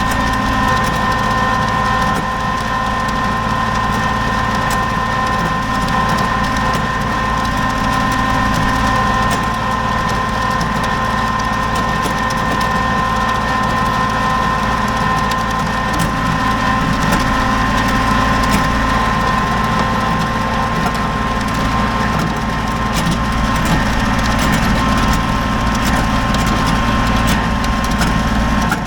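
Kubota BX23S compact tractor's diesel engine running steadily with a steady whine, with scattered crunching and clicking, typical of the tractor working a gravel driveway.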